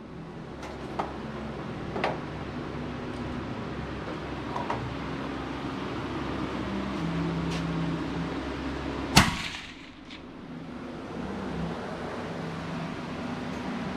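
A single rifle shot about nine seconds in, sharp and loud with a short echo, with a few fainter cracks of shots earlier, over steady background noise.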